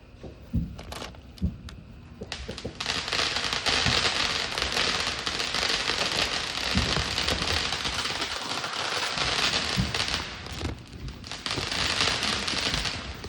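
Consumer fireworks going off: two sharp bangs about half a second and a second and a half in, then a long, dense crackling that sets in about two and a half seconds in, eases briefly about ten to eleven seconds in, and picks up again before it stops.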